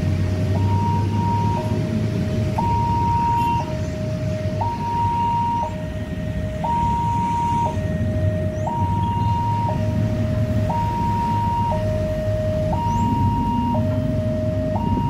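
Electronic warning alarm of a railway level crossing, sounding with its barriers lowered. It alternates a lower and a higher tone, each held about a second, over a low rumble.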